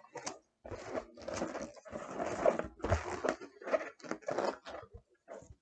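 Inflated chrome latex balloon being handled and knotted: the latex rubbing and scraping under the fingers in a run of short, irregular bursts.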